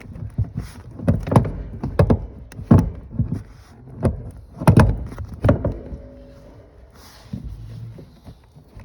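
A string of dull thumps and knocks, a dozen or so over about five seconds and then a few lighter ones, as a Porsche 987 seat is shifted and jostled in the car to line it up with its bolt holes.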